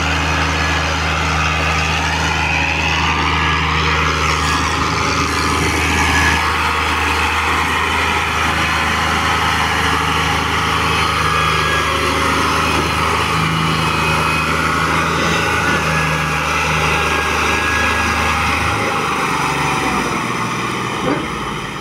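Fiat 480 tractor's three-cylinder diesel engine running steadily under load while hauling a heavily loaded sugarcane trolley. The deep engine drone thins out near the end.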